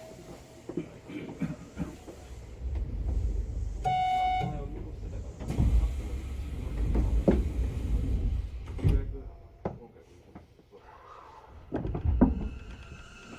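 Passenger doors of a Hanshin 1000 series train sliding shut at a station, with several knocks and low rumbles and a short beeping tone about four seconds in.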